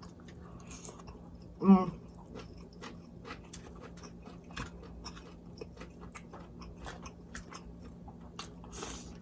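Close-miked chewing and lip-smacking on fried red snapper, a run of small wet clicks and crunches. About one and a half seconds in comes one brief vocal sound from the eater.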